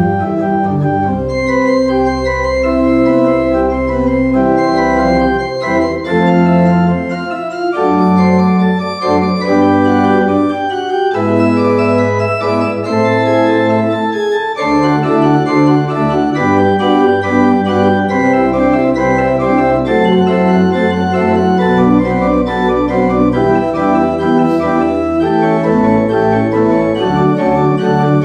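Pipe organ playing a prelude: sustained full chords over a bass line that steps to a new note every second or so.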